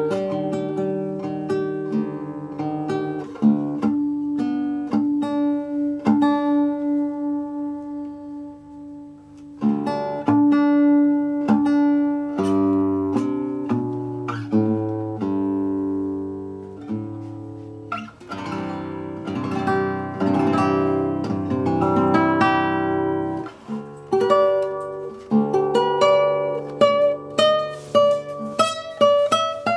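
Newly built Russian seven-string acoustic guitar played solo, plucked melody over bass notes. A long note is left ringing and fading away about a third of the way in before the playing picks up again, with quicker notes near the end.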